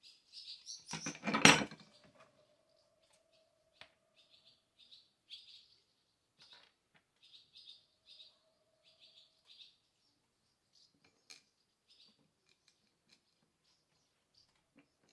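A short clatter of small metal parts, the screws and nuts for a chainsaw bucking spike, handled on a wooden table about a second in, followed by a few light clicks. Small birds chirp repeatedly in the background.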